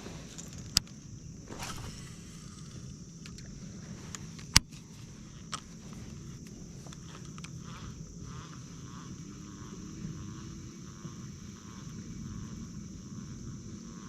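Outdoor lakeside ambience with a steady high insect drone, broken by a few sharp clicks, the loudest about four and a half seconds in.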